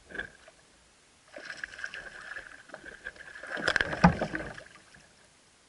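A spinning fishing reel being cranked, whirring steadily for about three and a half seconds from just over a second in. About four seconds in come a few sharp knocks and a thump with splashing at the kayak's side, the loudest part.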